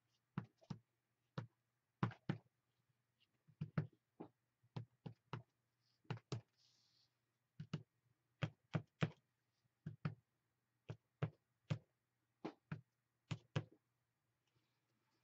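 Irregular sharp taps, about one or two a second, of a paint-loaded mark-making tool being pressed and stamped onto a paper journal page on a tabletop.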